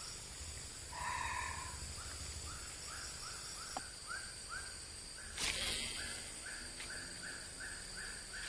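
An animal call of short rising chirps, repeated about three times a second, over faint steady outdoor ambience. A brief noisy burst breaks in about five and a half seconds in.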